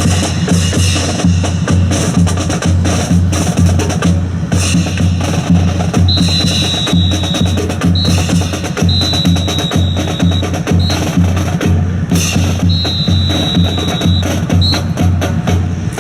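A bass drum keeps a steady cadence, about two beats a second, under the sharp wooden clacks of drill rifles being handled. From about six seconds in, a whistle blows three long blasts, each followed by a short pip: whistle commands for the drill team.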